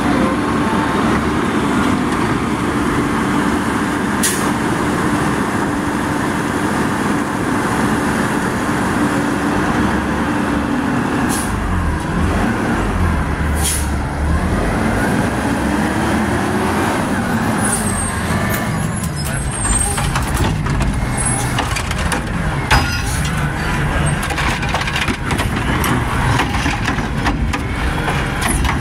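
Heil front-loader garbage truck's diesel engine running, at first steadily, then revving hard and falling back again and again to drive the hydraulics. A few short sharp sounds cut through it, and the second half is full of clanks and knocks as the carry can's automated arm grabs and lifts a wheeled cart.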